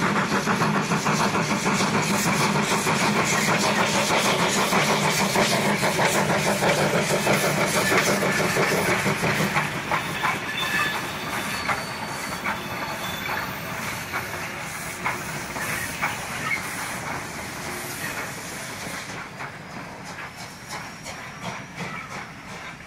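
South Maitland Railways 10 class 2-8-2T steam tank locomotive working past: rapid exhaust chuffs over a hiss of steam, with wheels clicking on the rail. It goes quieter after about ten seconds.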